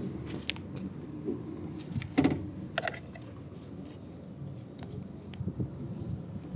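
A few separate sharp clicks and knocks from parts being handled while a car door lock is worked on. The loudest comes about two seconds in, with another just under a second later.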